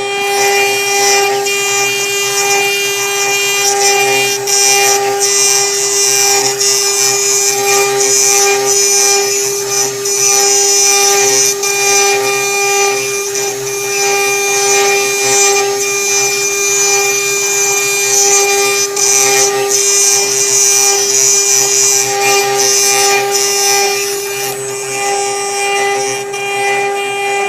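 Small CNC router engraving: the spindle runs with a steady whine while the bit cuts, adding a hissing cutting noise that swells and eases over several seconds.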